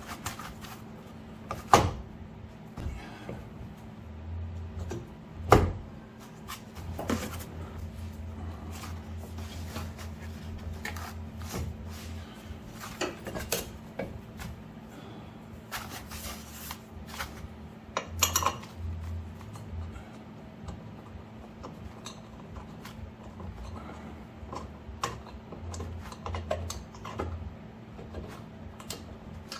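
Scattered metal clanks and knocks of car parts and tools being handled during hands-on suspension work. Two sharp, loud knocks come in the first six seconds and a burst of clatter comes about two-thirds of the way through, over a steady low hum.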